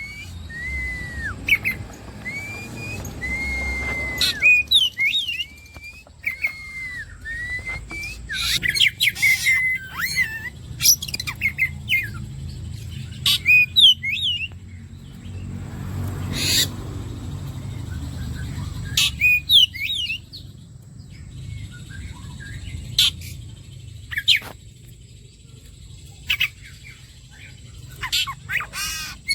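Oriental magpie-robin (kacer) singing: a run of repeated curved whistled notes, then loud sharp chips and varied calls, over a low background rumble.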